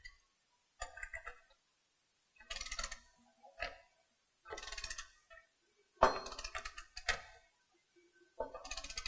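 Socket ratchet wrench clicking in several short bursts, one burst per return stroke, while a bolt on a pipe coupling's locking flange clamp is tightened by hand.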